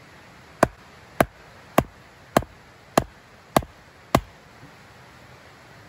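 Seven sharp knocks in a steady rhythm, about one every 0.6 seconds, over a steady hiss.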